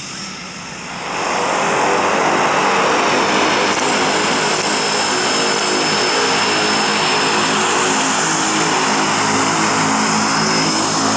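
Propeller aircraft engine running steadily nearby, rising to loud about a second in.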